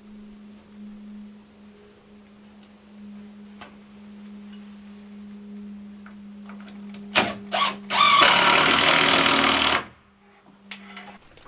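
A power tool run in two short trigger bursts and then a longer run of about a second and a half that stops abruptly, over a steady low hum.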